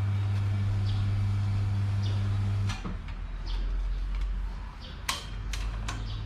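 Hatari electric fan's motor humming steadily with a deep mains hum, cut off abruptly a little under three seconds in. A few sharp clicks and knocks of handling follow.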